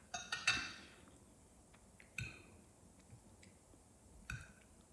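Metal fork clinking against a plate while twirling noodles: a quick run of clinks at the start, then single clinks about two seconds in and near the end.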